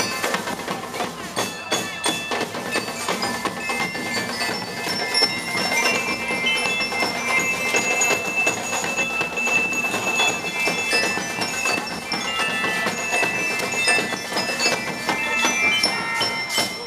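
School marching band of drums and bell lyres playing: snare and bass drums beating a dense rhythm under a bright ringing melody on the lyres. The playing stops at the very end.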